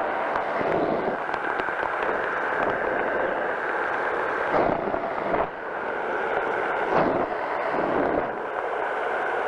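Powered parachute's engine and propeller running steadily in flight, with wind buffeting the microphone in a few gusts about halfway through and again near the end.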